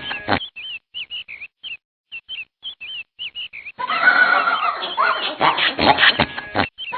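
Birds calling: for the first few seconds short, curving chirps come about three a second, then just before four seconds in a whole flock breaks into loud, overlapping calls.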